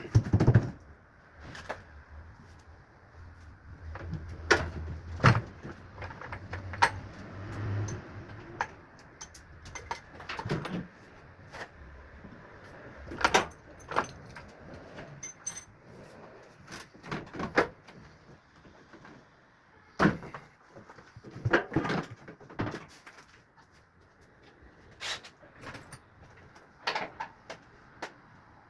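Scattered metallic clinks, clicks and knocks of tools and loose parts being handled while a washing machine is taken apart. A low hum runs under the first eight seconds or so.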